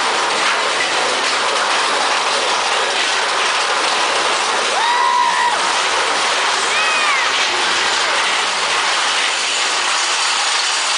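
Roller-coaster mine train running along its track, heard from on board: a loud, steady rattling rush of wheels and cars. Two brief high-pitched sounds rise and fall about halfway through and again a couple of seconds later.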